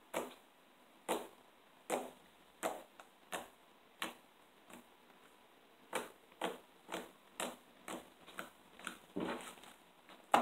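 Fingertips poking a flattened slab of slime, each poke giving a short sticky pop: about one a second for four seconds, a short pause, then quicker pokes from about six seconds in.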